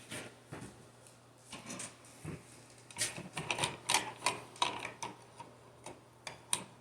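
Irregular small clicks and taps of wires and a wall receptacle being handled, busiest in the middle, over a faint steady hum.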